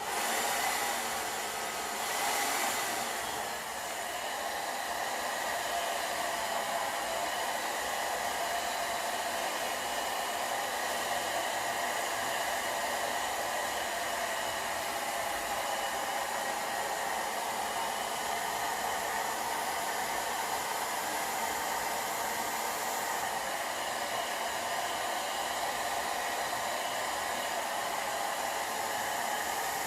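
Sharp IB-WX1 hair dryer switched on and blowing steadily, a continuous rush of air and motor noise. It is a little louder for the first few seconds, then holds steady.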